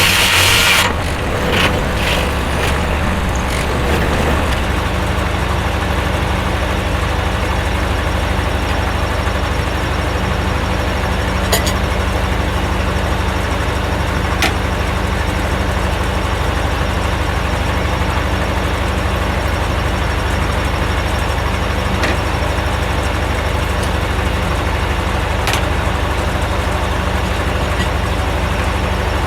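The engine powering a Corley circular sawmill runs steadily with a low drone. A loud noisy burst in the first second cuts off, and a few faint clicks follow.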